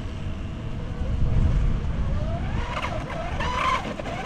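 RC boat's 3660-size 2600kv brushless electric motor on a 4S battery whining across the water, its pitch sweeping up and down in the second half as the throttle changes.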